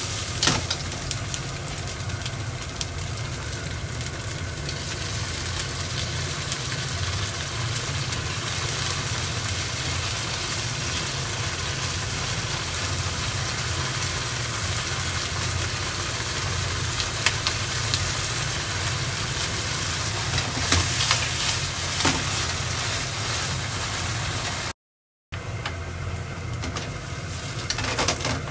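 Firm tofu cubes sizzling steadily in oil in a nonstick frying pan, with a few sharp clicks of tongs as the pieces are turned over to brown the other side. A steady low hum runs underneath, and the sound cuts out for a moment near the end.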